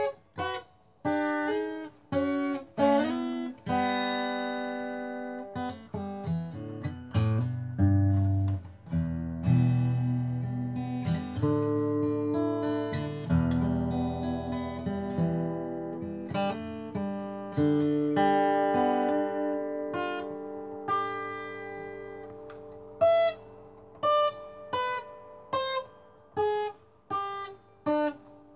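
Acoustic guitar played solo: strummed chords with notes left ringing and sustaining through the middle, then short, sharp chord strokes about once a second near the end.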